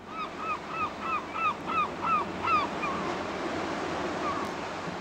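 A gull calling a quick series of about eight short arched notes, roughly three a second, then a few scattered calls, over the steady wash of rough sea.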